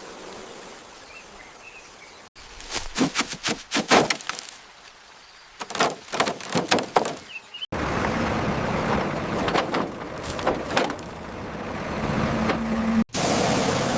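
Car restoration work sounds in quick cuts: a run of sharp scraping or knocking strokes in two clusters, then a steady hissing noise that grows louder after a cut near the end.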